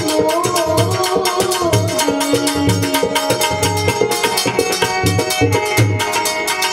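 Instrumental passage of a bhajan: tabla playing a brisk, steady rhythm with deep bass-drum strokes, while a harmonium and an electronic keyboard carry the melody.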